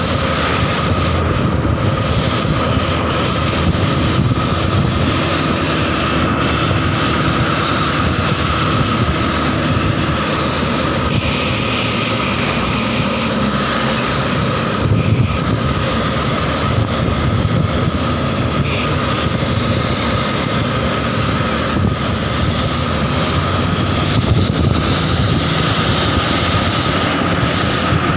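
Steady road noise of moving traffic, heard riding close behind and beside a Mercedes-Benz intercity coach: engine drone and wind rush with a steady high hum.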